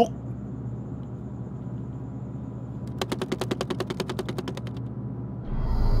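A rapid rattle of sharp clicks, about a dozen a second, lasting under two seconds, over a low steady hum. Music with a deep low drone comes in near the end.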